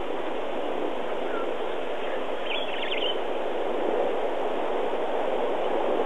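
Safari game-drive vehicle driving on a dirt track: steady engine and rolling road noise, growing a little louder near the end.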